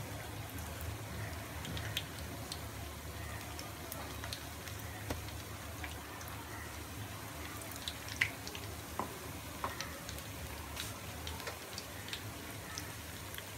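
Batter-coated chicken pieces frying in hot oil in a pan: a steady sizzle dotted with scattered pops and crackles, the loudest pop a little past halfway.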